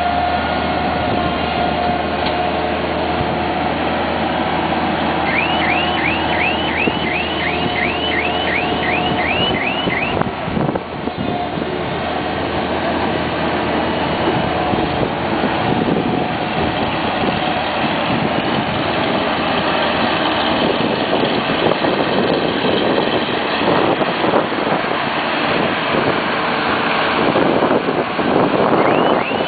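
GAMZEN skid-steer loader's engine running steadily under load as it levels soil with a towed grader attachment. A repeated high chirp, about two a second, sounds for several seconds a fifth of the way in and again at the very end.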